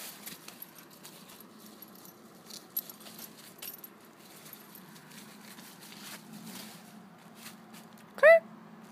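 Standard Poodle's paws crunching and rustling through dry fallen leaves, a faint scatter of crackles, with a light jingle from its collar tags. Near the end the dog gives one short, high yip.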